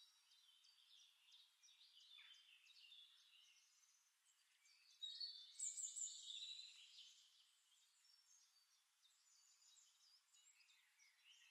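Near silence, with a few faint high-pitched chirps for about two seconds in the middle.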